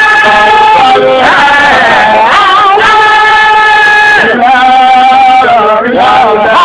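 Sung Sufi zikr chant: a voice holds long, steady notes and slides between them in ornamented turns.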